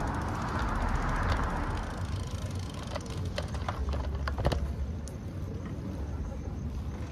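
Riding a bicycle on a wet city street: a hiss of tyres on wet pavement that fades out about two seconds in, then a few sharp clicks and rattles, over a steady low rumble of wind on the microphone.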